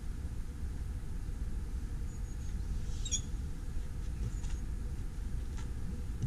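Steady, fluttering low rumble of wind on an outdoor camera microphone, with a few faint short high chirps, the clearest about three seconds in.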